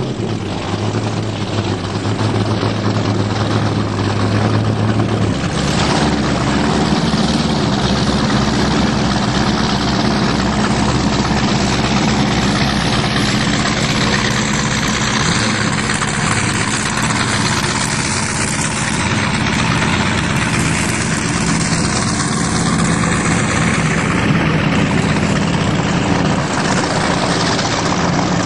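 Boat engines running at speed on open water, a steady drone mixed with rushing wind and water. A low steady hum sits under it for the first five seconds, then stops.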